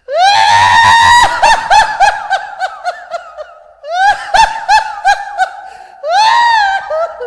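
Horror ringtone of a ghostly, very high-pitched cackling laugh: a rising held shriek that breaks into a run of quick 'ha-ha-ha' pulses, about four a second, fading away. The phrase comes three times.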